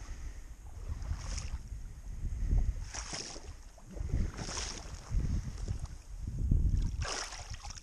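Water sloshing and splashing as a person wades through a shallow swamp pond, with a splash every second or so, then an arm plunging into the water near the end.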